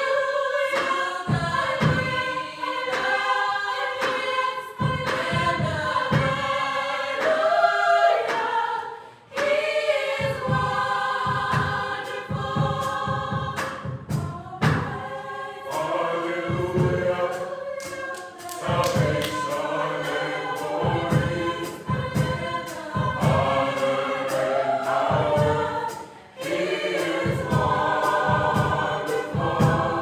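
A mixed-voice gospel choir singing in full harmony over a steady low beat, with two brief breaks between phrases.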